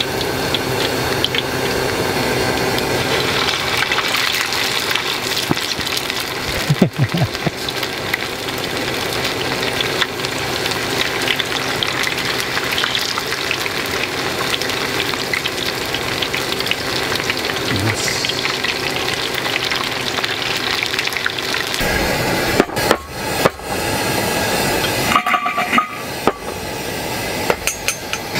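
Chicken pieces deep-frying in hot oil in an aluminium mess tin, a steady dense crackle and sizzle of bubbling oil. Near the end the frying gives way to a few knocks and clicks.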